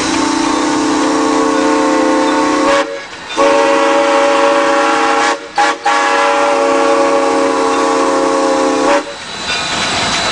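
Steam whistle of a Shay geared steam locomotive blown in four blasts: two long, one very short, then a long final blast. This is the long-long-short-long signal sounded when approaching a road crossing.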